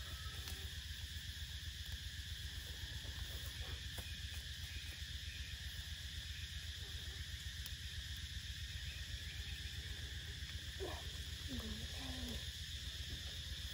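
Steady outdoor ambience of an insect chorus over a low hum. About eleven seconds in come a few short hooting calls that bend up and down in pitch.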